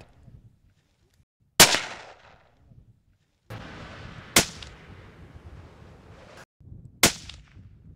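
Three sharp bangs, about two and a half seconds apart, each with a short echoing tail; a faint outdoor hiss lies under the middle one.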